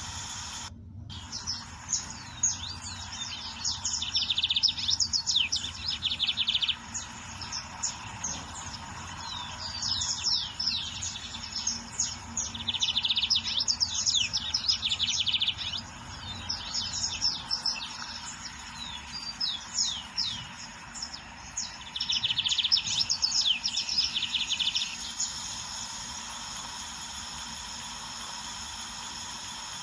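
Lined seedeater (bigodinho) singing three song bouts, each a run of quick high downslurred notes running into a rapid, dense trill. A steady low hum sits underneath.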